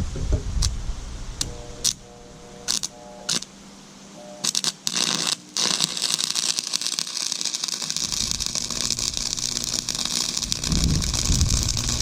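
AC stick welder (buzz box) burning a 7018 rod for a tack weld. A string of short scratches and brief buzzing arc starts comes first, as the rod is struck. About five and a half seconds in, the arc catches and crackles steadily through the rest.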